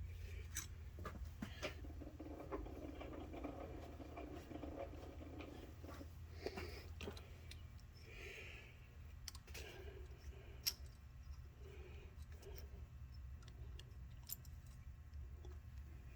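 Faint scattered clicks and small taps of hand tools and parts being handled, with a soft rustle early on and one sharper click a little after the middle, over a steady low shop hum.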